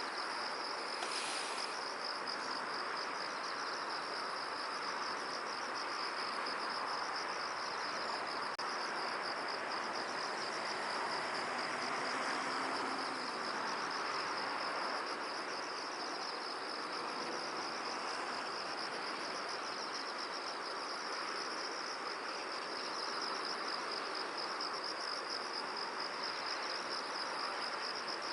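A steady high-pitched insect trill, pulsing rapidly without a break, over an even rushing hiss of wind.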